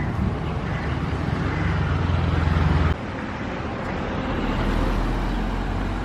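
Motor vehicle running through town traffic: a steady low engine hum with road and traffic noise. The sound changes abruptly about halfway through, dropping to a quieter, deeper hum.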